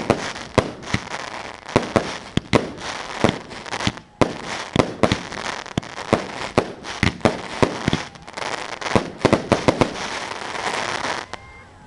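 Fireworks display: a fast string of sharp shell bursts, one to three a second, over continuous crackling. The bangs stop shortly before the end.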